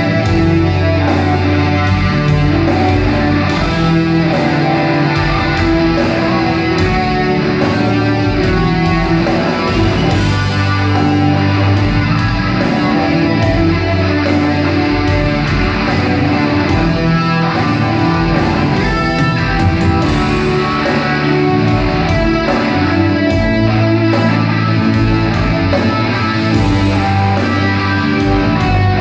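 Live rock band playing, with amplified guitar to the fore.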